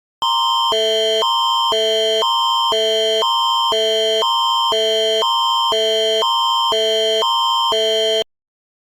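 Canadian Alerting Attention Signal (Alert Ready alarm): two chords alternating every half second, a higher pair near 930 and 1050 Hz and a lower pair near 440 and 660 Hz, with a steady high tone near 3.1 kHz under both. It runs for about eight seconds, then cuts off suddenly, and it marks the start of an emergency alert broadcast.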